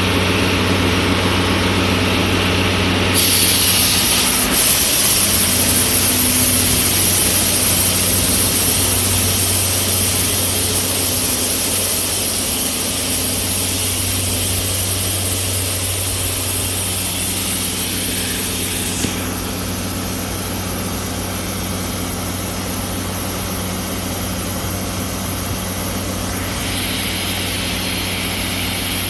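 A DE10 diesel-hydraulic locomotive idling with a steady low engine hum. About three seconds in, a loud steady hiss starts over it, drops away after about nineteen seconds and comes back near the end.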